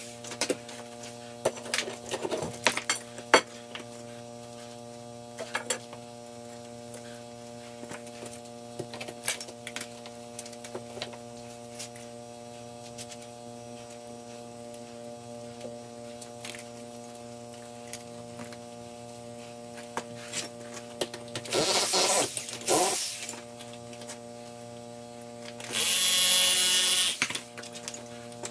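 A steady machine hum runs under scattered knocks and clatter of loose concrete block and rubble being worked by hand. A power tool runs in two short bursts in the second half, the second one the loudest.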